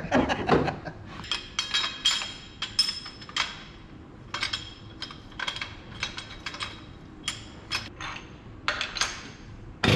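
Light metal-on-metal clinks and taps, about two dozen irregular sharp strikes, each with a short ring. A loud, steady motor noise starts right at the end.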